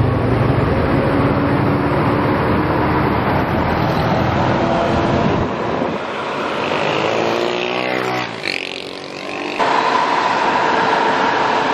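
Mercedes-Benz coach's rear-mounted diesel engine running hard as the bus drives close past and on up a hill. The heavy engine sound gives way about six seconds in to a sweeping whoosh as the bus passes, then steadies again near the end. It is a bus that the owner says still has far too little power on climbs.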